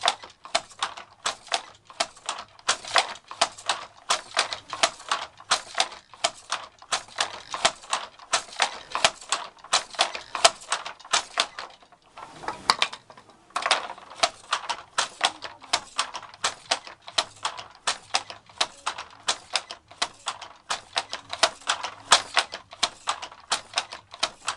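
Wooden handloom clacking rhythmically as it weaves, about two to three sharp clacks a second from the shuttle and the beater knocking in the weft. The rhythm breaks off briefly about halfway through, then resumes.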